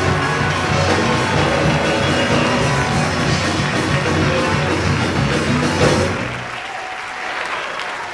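Loud rock-style band music with a steady beat that stops about six seconds in, followed by applause.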